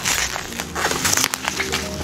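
Plastic parcel wrapping crinkling and rustling as it is pulled apart by hand, with background music playing underneath.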